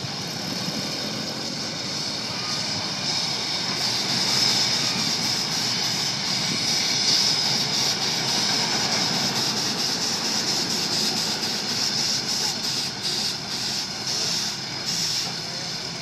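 Steam shovels working: a steady hiss with machinery running underneath, swelling a little about four seconds in.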